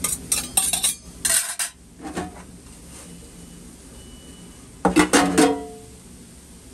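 Metal kitchen utensils and dishware clattering: a quick run of clinks and knocks in the first second and a half, then a louder cluster of clanks about five seconds in that briefly rings.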